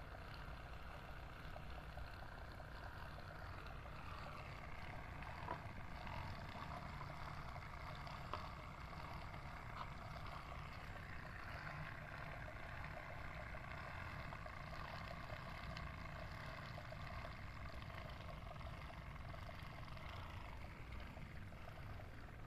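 Small DC diaphragm water pump running with a steady hum, pumping water through the tubes of a DIY cooler. Two light clicks about a third of the way in.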